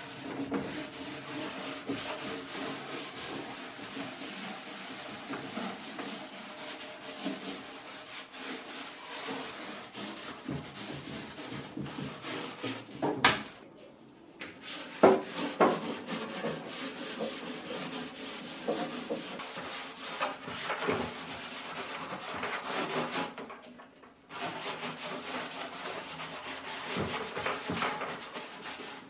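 Wooden surface being rubbed down with an abrasive in steady continuous strokes. It breaks off briefly twice, once just after a sharp knock about halfway through.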